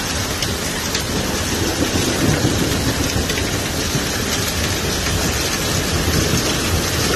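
Heavy hail falling hard: a dense, steady pelting of hailstones on the surfaces around, with a few sharper ticks of single stones striking close by.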